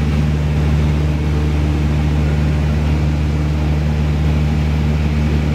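Light aircraft's engine and propeller in steady cruise, heard inside the cabin: a constant low drone with a deep hum.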